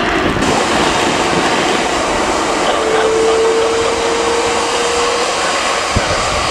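Airbus A330 airliner's jet engines: a loud, steady rush. A steady mid-pitched hum rises out of it from about three to five seconds in.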